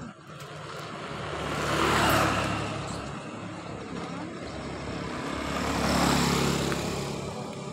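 Two small motorcycles pass close by one after the other, the first about two seconds in and the second about six seconds in. Each engine's sound rises and then fades as it goes past.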